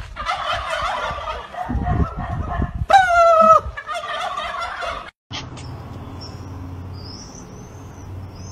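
Turkeys gobbling, with one loud, drawn-out call about three seconds in. After a sudden break about five seconds in, a quieter steady background with small birds chirping.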